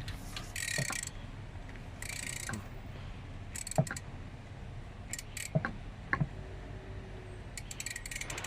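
Ratchet wrench with a 14 mm socket clicking in short bursts of rapid ticks as it is worked back and forth to unscrew a wiper-arm nut, with a few light knocks in between.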